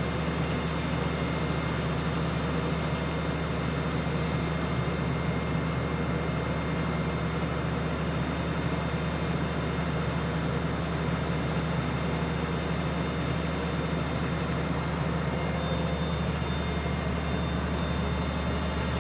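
Heavy diesel engine of mining equipment running at a steady, unchanging speed: a deep even drone with a faint steady high whine over it.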